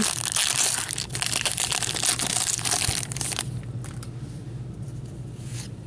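Hockey card pack wrapper being torn open and crinkled by hand: dense crackling and tearing for about three and a half seconds, then fading to faint rustling as the cards are handled.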